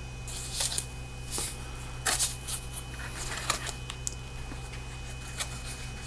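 A box being opened and its contents handled by hand: scattered light rustles, scrapes and small clicks.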